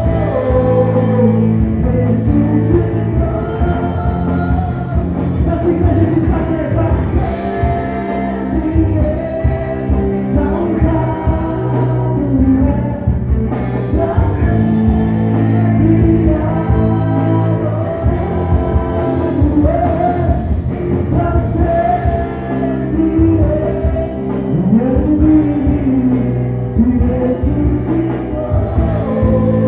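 Live church band playing a rock-style worship song, with a singer over electric guitar, bass and drums keeping a steady beat.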